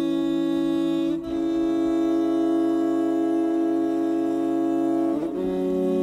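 Background music of slow, held chords that change about a second in and again near the end.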